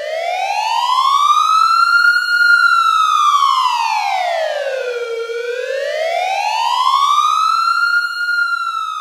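Wailing siren alarm sounding as the countdown runs out. Its pitch rises and falls slowly twice, each swell about two and a half seconds up and as long down.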